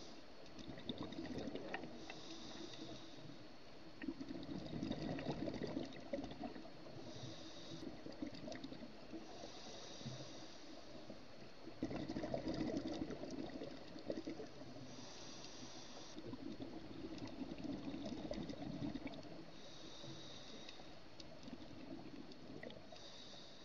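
Scuba diver's regulator breathing underwater. Each inhale is a short hiss, and each exhale is a longer stretch of bubbles, in a slow rhythm that repeats every few seconds.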